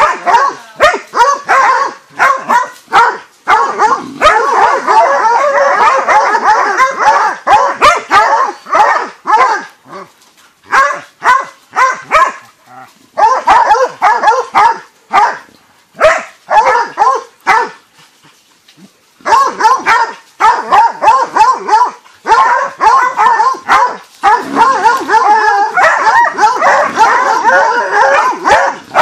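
Dogs barking and yelping frantically, almost without pause, as they bay at a jaguar they are fighting. There are brief lulls about ten and eighteen seconds in.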